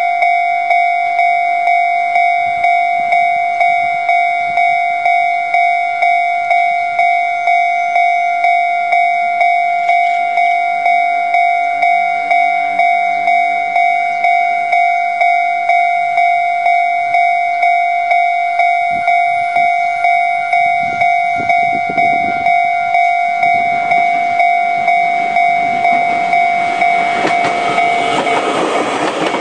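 Japanese railway level-crossing warning bell ringing in a steady repeating ding, about one and a half strikes a second. Near the end the noise of a train rises as it reaches the crossing.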